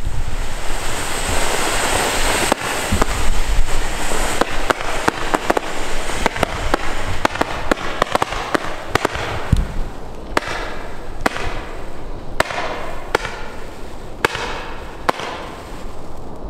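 Small consumer firework batteries (cakes) firing: dense fizzing and crackling at first, then a steady run of sharp launch shots, about two a second, each with a fizzing trail.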